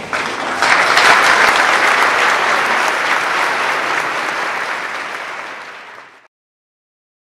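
Audience applauding, swelling about a second in and then slowly fading until it cuts off about six seconds in.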